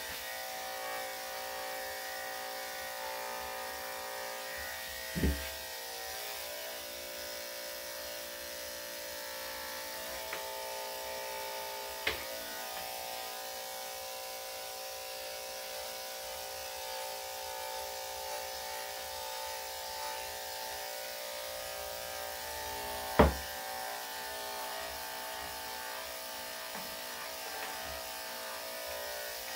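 Electric dog grooming clippers with a #5 blade running steadily, with three brief knocks over their hum, the loudest about 23 seconds in.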